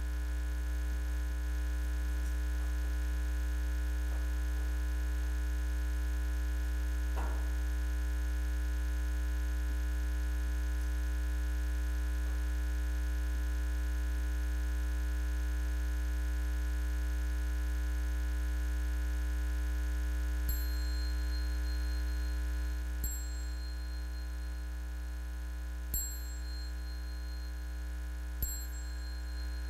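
Steady electrical mains hum in a quiet room, with a single light knock about seven seconds in. From about two-thirds of the way through come four short, high-pitched dings, roughly every two and a half seconds.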